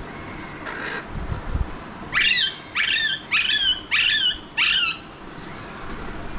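Alexandrine parakeet calling: five loud calls in quick succession starting about two seconds in, with fainter calls just before.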